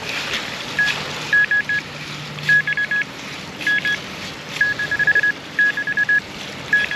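Metal detector beeping: quick clusters of short beeps on one high tone, repeating every second or so, as it is passed over a metal target in the dig, a 25-cent coin.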